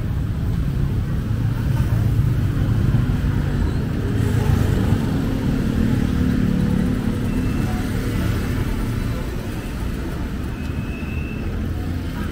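Road traffic: engines of passing motorcycles and cars running steadily, with one engine nearby growing louder a couple of seconds in and fading after the middle.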